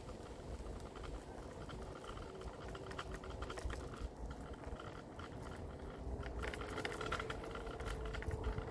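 Tyres crunching over a gravel track, a dense run of small irregular crackles over a low wind rumble on the microphone.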